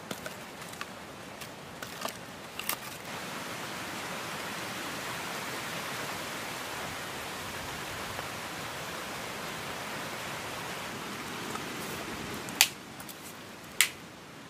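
Sticks of firewood clicking as they are laid between fire-pit stones, then a steady even hiss, and near the end two sharp knocks about a second apart as a blade chops into a stick of firewood.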